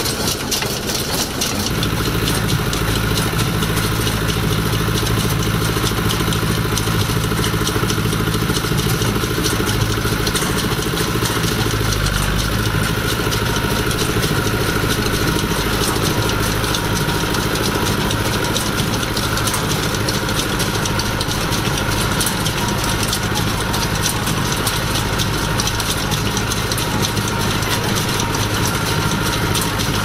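Fiat 880DTH tractor's diesel engine running steadily while it drives a Gallignani 146 Special baler baling hay, the engine note growing stronger about two seconds in.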